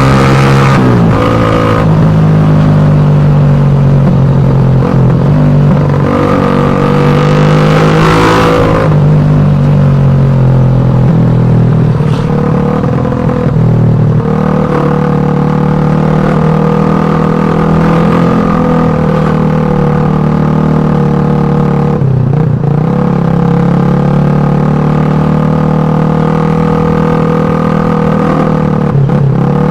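Exhaust of a Suzuki Satria FU 150's single-cylinder four-stroke engine running at steady revs, revved up briefly a few seconds in and falling back, with two short dips in revs later on.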